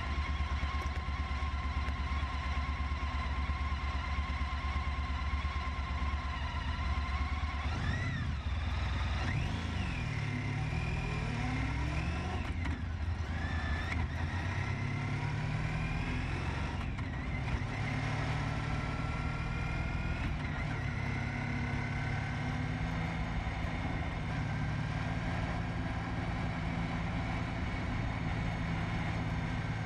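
Honda ST1300 Pan European's V4 engine idling, then about eight seconds in it pulls away. Its pitch rises and drops repeatedly as it accelerates through the gears, then it settles into a steady run.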